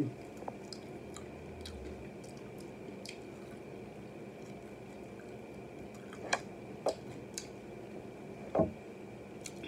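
Quiet, wet chewing and lip-smacking of a sauced fried chicken wing eaten off the bone, with a few sharp mouth clicks a little past halfway and one short louder mouth sound near the end.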